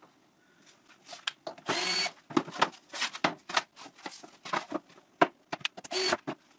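Cordless drill-driver running in two short bursts with a thin whine, about two seconds in and again near the end, the second driving a screw into a plywood saw guide. Between the bursts, plywood boards being handled knock and clatter on the wooden cutting table.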